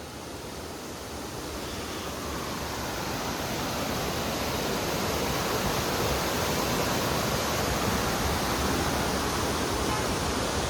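Steady rushing of a stream in spate, a dense water noise that grows louder over the first few seconds and then holds.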